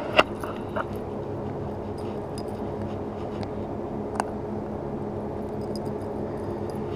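A steady low motor hum, with a few light clicks from a small fish and a lure being handled while the hook is worked free.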